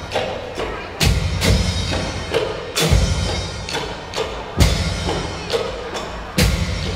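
Isan folk ensemble music: a pong lang wooden log xylophone plays a quick struck melody over a drum beat, with heavy drum strokes about every two seconds and lighter hits in between.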